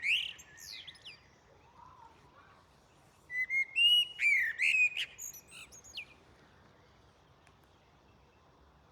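A songbird singing two phrases of whistled notes and quick sweeping calls, the first trailing off about a second in and the second running from about three to six seconds in. The recordist takes it for a nightingale.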